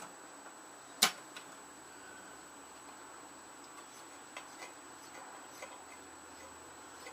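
Scattered light clicks and taps from hand work on a small mower engine, with one sharper knock about a second in.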